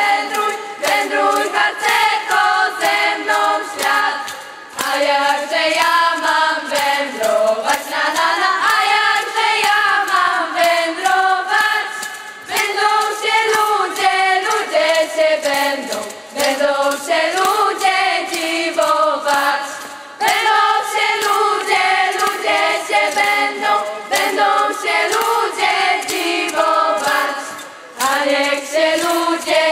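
A group of young female voices singing a Polish scout song together in phrases, with short breaths between them, over a steady rhythmic accompaniment.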